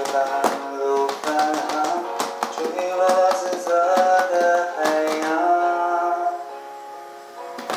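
Music playing from the Unitree Go2 robot dog's built-in speaker: a melody of short, changing notes over sharp clicks, with no bass.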